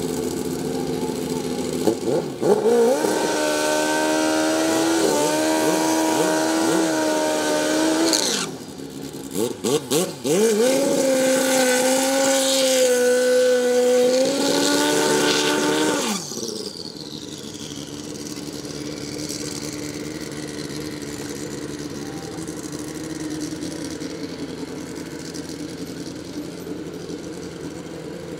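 Two drag-race motorcycles doing burnouts one after the other. Each engine is held at a steady high rev for about five seconds while the rear tyre spins, the first from about 2 seconds in and the second from about 10 seconds in, with a few crackles and blips between. The revs cut off at about 16 seconds, and after that the engines drone lower and steadier, idling.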